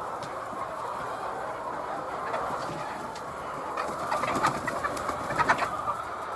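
Many hens clucking together in a poultry shed, a steady din, with a cluster of louder short calls and clicks between about four and five and a half seconds in.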